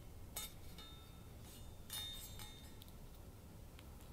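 A few faint light clinks, about half a second and two seconds in, each with a brief ringing tail.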